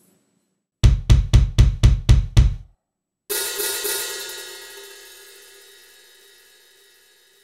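Drum samples played by the Voxkit iOS app, triggered by a drumstick striking a practice pad and then a coffee mug: seven quick, deep drum hits, then a single cymbal crash that rings and slowly fades away.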